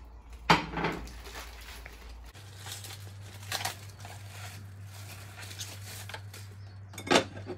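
Clear plastic wrap crinkling and crackling as it is peeled off a pizza, with sharp louder crackles about half a second in, midway, and near the end.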